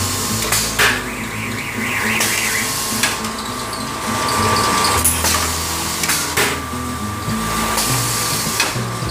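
Automatic roll-fed blister tray forming machine running: a steady mechanical hum with a sharp knock every two seconds or so as it cycles.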